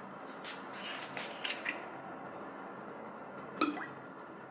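A few light knocks and clinks of a glass olive oil bottle being taken from a shelf and handled, the loudest one late on.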